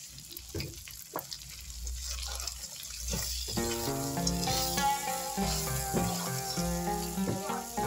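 Shrimp frying in a pan, sizzling, with a spatula knocking against the pan as they are stirred. Background music comes in about three and a half seconds in and carries on over the frying.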